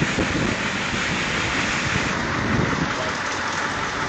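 Storm wind rushing steadily, with gusts buffeting the microphone as low rumbles at the start and again about two seconds in.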